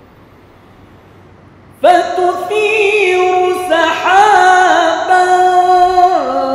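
Male Quran reciter chanting in mujawwad style: after a short pause, about two seconds in, he enters with a long melismatic line, holding notes with ornamented turns, and steps down in pitch near the end.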